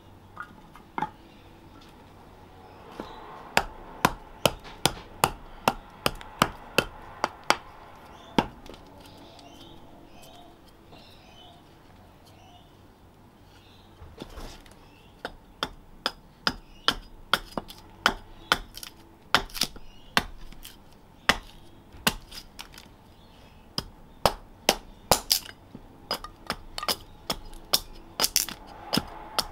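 Hatchet chopping and splitting green plum wood on a chopping block: sharp knocks of steel into wood, about two a second. One run of knocks comes in the first few seconds, a short pause follows, then a longer run starts about halfway through.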